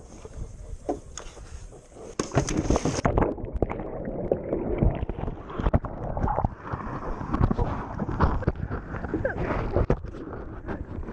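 A person falling off an inflatable paddle board into the water: a sudden splash about two seconds in, then several seconds of muffled churning and gurgling water.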